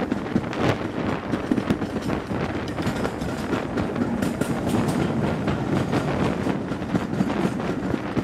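LMS Hughes Crab 2-6-0 steam locomotive No. 13065 hauling its train at speed, heard from a carriage window: quick exhaust beats mixed with wheels clattering over the rails. The sound turns sharper and brighter for a moment as the train passes under a road bridge about four seconds in.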